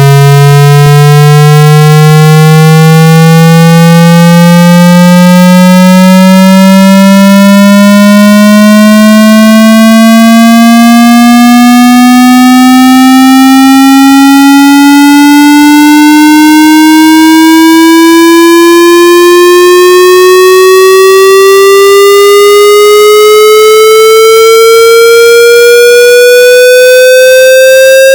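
Hearing-test tone sweep: a loud, harshly distorted, buzzy test tone climbing slowly and steadily in pitch, about two octaves, from a low hum to a mid-range tone.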